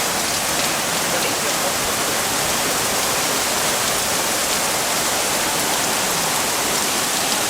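Heavy thunderstorm rain falling in a steady, even hiss, with no thunderclap.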